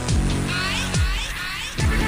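Electronic music with a deep kick drum that falls in pitch about every three-quarters of a second, and warbling synth lines.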